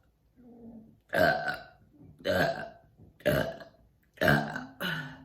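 A woman burping in a quick series: one soft burp, then five loud ones about a second apart, brought on by chugging Olde English malt liquor.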